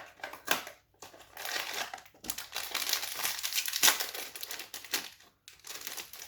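Hello Panda biscuit packaging being handled and opened, crinkling. There are a few sharp rustles, then a long stretch of dense crinkling, a brief stop, and more rustling near the end.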